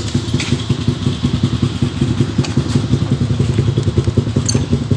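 Small motorcycle engine idling steadily, with a fast, even low beat.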